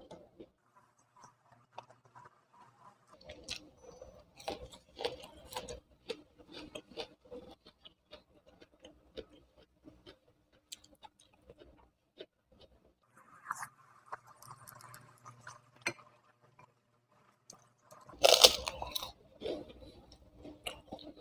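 Close-up mukbang eating sounds: wet chewing and mouth clicks of rice, tempe and fried eggplant eaten by hand. About eighteen seconds in comes a loud crunch as a white kerupuk cracker is bitten.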